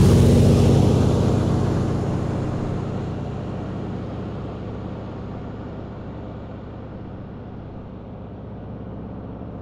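De Havilland Beaver floatplane's piston engine and propeller running, fading away as the plane flies off.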